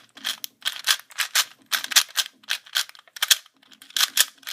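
Plastic speed cube being turned by hand: quick clacking layer turns, about three to four a second.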